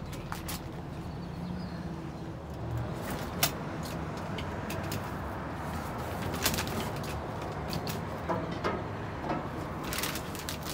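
Cardboard boxes and packaged goods being shifted around in a dumpster: scattered rustles, clicks and knocks, with a sharp knock about three and a half seconds in and another about six and a half seconds in. A steady low hum runs underneath.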